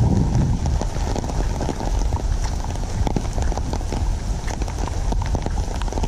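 Rain falling, with many close drops ticking irregularly over a steady low rumble of wind on the microphone.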